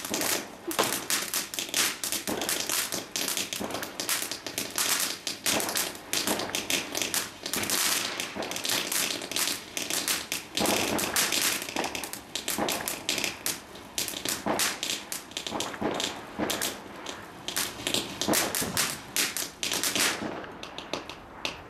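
Ground firework fountain spraying sparks, with a dense, irregular crackle of sharp pops over a hiss. The crackling stops shortly before the end, leaving a faint hiss.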